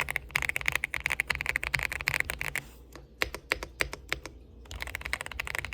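Typing on an Aula F75 Max gasket-mount mechanical keyboard: fast runs of keystrokes, slowing to separate single key presses in the middle and speeding up again near the end.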